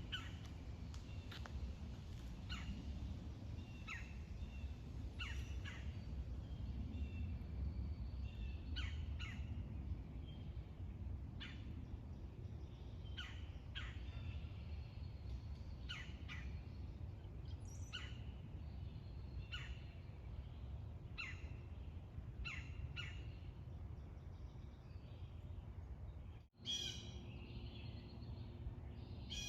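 A bird calling over and over, short sharp downward calls about every second or so, over a steady low background rumble. Near the end the sound cuts out for an instant, and a different bird call follows.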